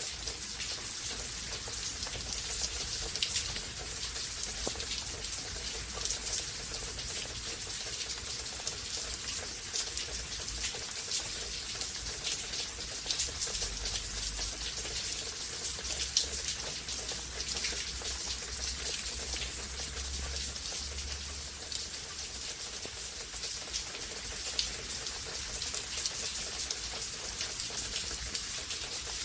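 Steady rain during a rain storm: a constant hiss with many separate drop hits close by.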